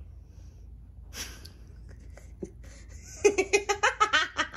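A sharp breath about a second in, then from about three seconds in a burst of rapid, loud laughter, a quick run of ha-ha pulses.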